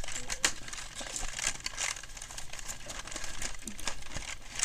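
Cardboard chocolate advent calendar crinkling and crackling as fingers handle it, with a run of irregular small clicks.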